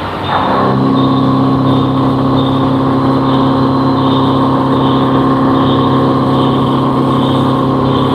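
Vertical machining centre running, a steady multi-tone machine hum that drops briefly at the start and settles back in about half a second in.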